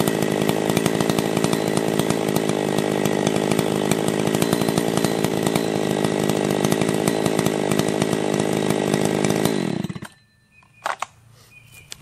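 Husqvarna 272 two-stroke chainsaw running at a steady speed out of the wood, then switched off about ten seconds in, the engine falling in pitch as it stops. A single knock follows about a second later.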